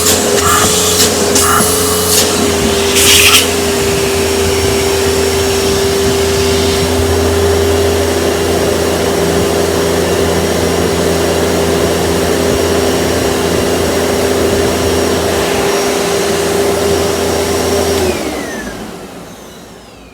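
Panasonic upright vacuum cleaner running steadily on carpet, with brief rattles and clicks in the first few seconds. About eighteen seconds in it is switched off and the motor winds down, its whine dropping in pitch as it fades.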